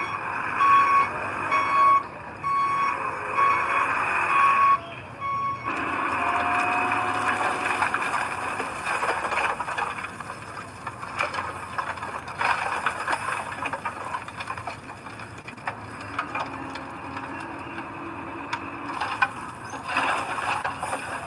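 A heavy truck's reversing alarm beeping at an even rate over its running engine, stopping about five seconds in. A steady rush of heavy machinery follows, full of scraping and rattling.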